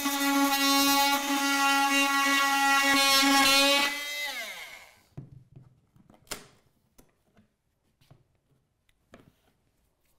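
Makita oscillating multi-tool running with a steady high buzz as it cuts a slot into a skirting board. About four seconds in it is switched off, and its pitch falls away as it winds down. A few faint clicks follow.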